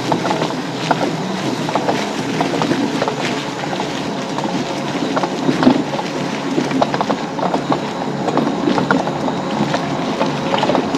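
High-speed electric mobility scooter driving over an off-road forest trail: a steady motor-and-drivetrain hum with frequent crackles and snaps as the tyres roll over leaves, pine needles and twigs.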